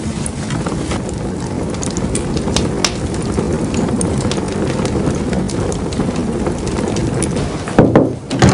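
Fire burning in an open fireplace, paper catching on glowing embers: a steady rush of flames with scattered crackles and pops. A louder knock near the end.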